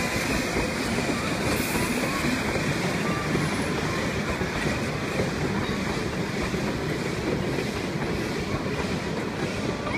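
Narrow-gauge steam train's wooden passenger carriages rolling steadily across a timber trestle bridge, their wheels running on the rails without a break.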